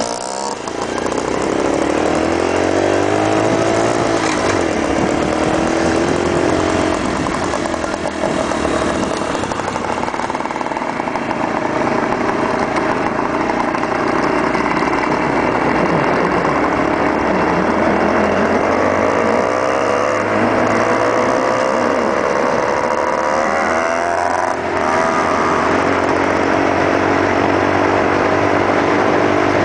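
Engines of two small motorcycles on the move, a Suzuki DS80 two-stroke dirt bike and a Honda ZB minibike. The engine pitch climbs and drops several times as they accelerate and ease off.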